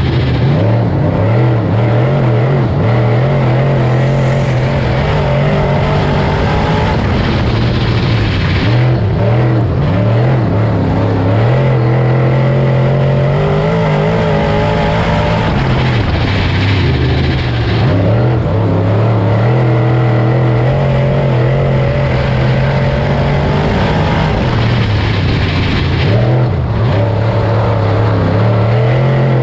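Dirt late model race car's V8 engine running hard at racing speed. The revs dip and climb back about every eight to nine seconds.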